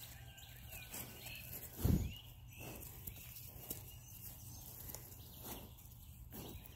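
Sheep grazing at close range: faint, scattered tearing and cropping of grass, with one short low thump about two seconds in.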